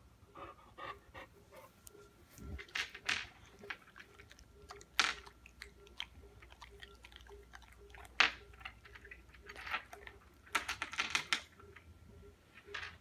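Small pebbles clicking and clacking on a hard tabletop and against a boxer dog's teeth as it mouths them up. Irregular clicks throughout, with sharp clacks about five and eight seconds in and a quick run of rattling clicks about ten seconds in.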